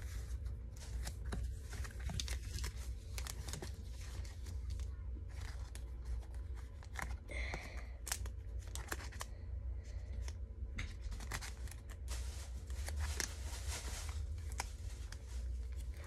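Crinkling and tearing of Pokémon trading-card packaging being handled, many small rustles and clicks following one another, over a steady low hum.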